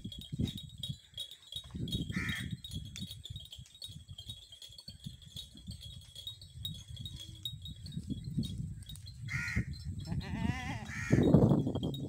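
A crow caws twice, several seconds apart, and a goat gives a loud, quavering bleat near the end, over a low rumbling noise.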